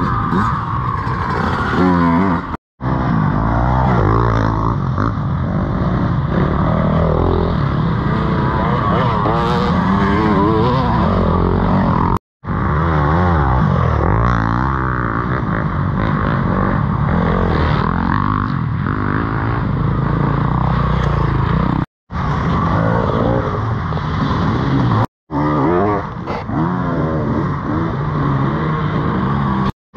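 Dirt bike engines revving up and down as they race over rough, muddy ground. The sound is broken by brief dropouts to silence about five times, where short clips are cut together.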